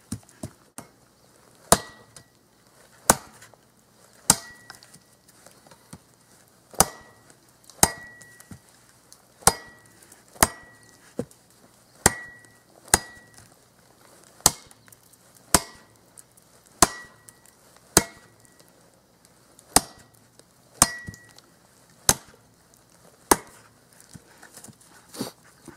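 Cold Steel Special Forces shovel, a thick, fully sharpened steel blade used as an axe, chopping through a dead, dry branch: about twenty sharp strikes, roughly one a second, many with a short high ring from the steel blade.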